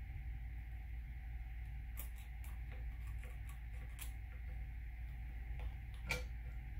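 Faint scattered clicks and ticks of a Gracey 1/2 curette's steel tip against the plastic teeth of a typodont during scaling strokes, about ten in all, over a steady low hum. The sharpest click comes about six seconds in.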